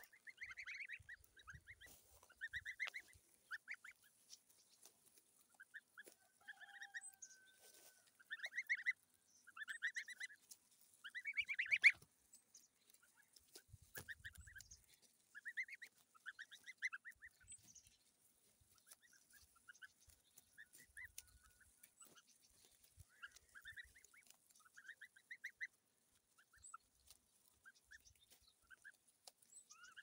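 A flock of goslings peeping: short runs of quick, high chirps from several birds at once, going on and off throughout, loudest about nine to twelve seconds in.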